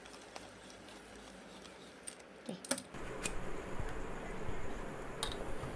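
Metal clicking and rattling from handling a cheap stainless steel hand coffee grinder, with a few light clicks at first and a denser rattle from about halfway.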